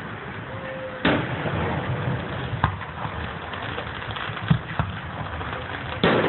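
Fireworks going off: a bang about a second in, a few lighter pops, then another bang near the end that runs into rapid crackling.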